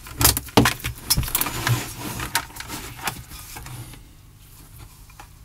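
Handling noises: a run of sharp clicks and knocks, as of a small electronics unit and tools being moved about on a workbench, stopping about four seconds in.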